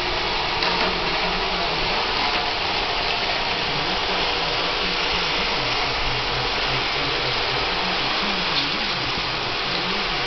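Roomba robot vacuum running, a steady whirring hiss of its suction fan and brushes with a low wavering hum beneath.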